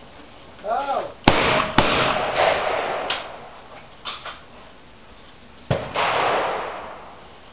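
Shotgun shots at clay targets. About a second in, a short shouted call is followed by two shots half a second apart, and another shot comes near six seconds. Each shot rings on in a long echo.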